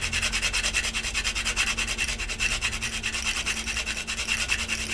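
Whole nutmeg being grated on a small stainless-steel rasp nutmeg grater, in quick, even scraping strokes at about seven a second.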